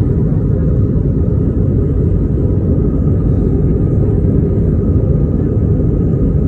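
Steady low rumble of a moving vehicle heard from inside, even throughout with no changes.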